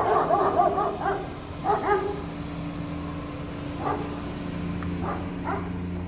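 A dog barking in short bursts, several close together in the first two seconds and then a few single barks, over a steady low hum.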